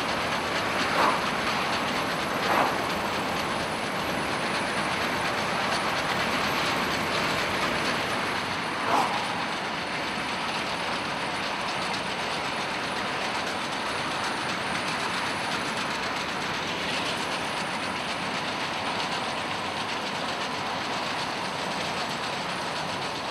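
R-class 4-6-4 steam locomotive and its train running fast in reverse, tender-first, a steady rush of running noise with rail clatter, heard from a moving car alongside. Three short, louder bursts stand out in the first nine seconds.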